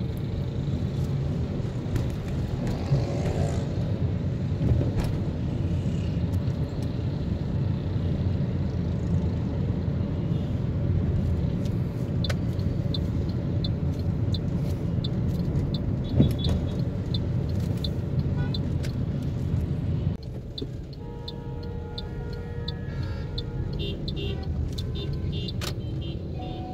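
Car engine and road noise heard from inside the cabin of a moving car, a steady low rumble. It eases off about 20 seconds in as the car slows in traffic, and short tones and ticks show over the quieter noise near the end.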